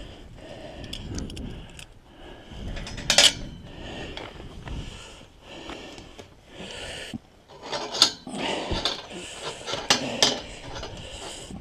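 Metal hardware clinking and rattling as it is handled, with scraping and rubbing between a few sharp clinks.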